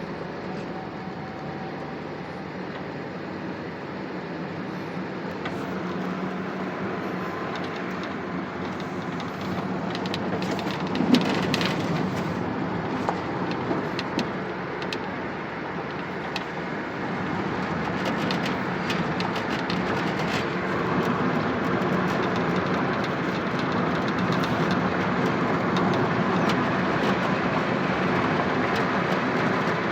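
Loaded truck running on the road: a steady drone of engine and road noise that slowly grows louder, with scattered clicks and rattles.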